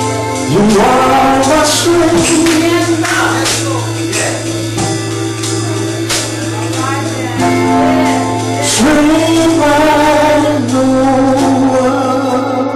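Live gospel worship music: a man singing through a microphone with women's voices joining, over percussion hits and a steady low hum.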